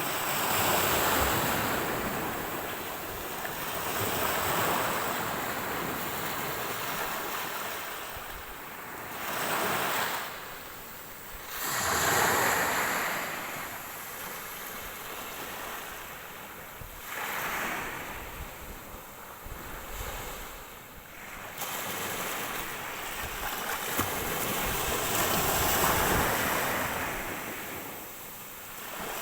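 Ocean waves breaking on the shore, the wash of surf rising and falling in swells every few seconds.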